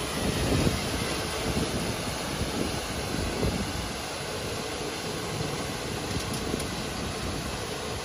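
Electric ride-on vacuum road sweeper running: a steady, even hiss with a faint hum.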